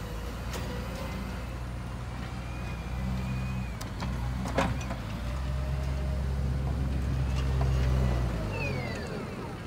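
Engine of a heavy snow-clearing vehicle running, growing louder from about three seconds in and fading again near the end, with a single sharp knock about halfway through.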